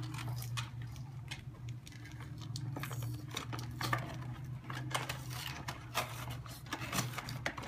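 A toy doll's box being pulled open, its packaging crackling in irregular clicks and crinkles over a steady low hum.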